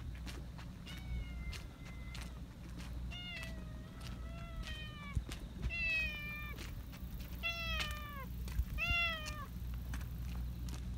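Black cat meowing about six times as it comes up to a person: the first meow is longer and held level, the rest are short and drop in pitch at the end. Friendly greeting meows that sound like saying hello.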